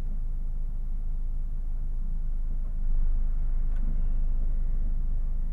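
Low, steady rumble of a car, heard from inside the cabin, growing slightly louder about three seconds in.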